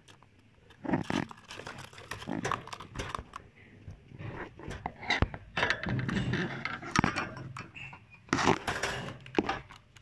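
Irregular knocks, scrapes and rustling from handling right up against a wire budgie cage and its nest box, loudest about a second in and again near the end.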